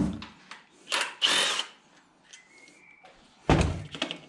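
Handling noises of engine parts as a pipe fitted with an O-ring is worked into its port on a BMW N52 engine: a heavy thump at the start, a couple of short scraping knocks about a second in, and another knock at about three and a half seconds.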